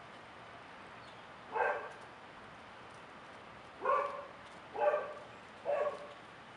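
A crow calling: four short caws, one about a second and a half in and three in quick succession near the end.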